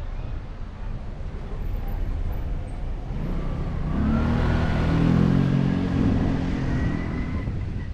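A car engine swells up about three seconds in, is loudest around the middle, then fades away, over steady low road noise; a faint whine rises in pitch as it goes.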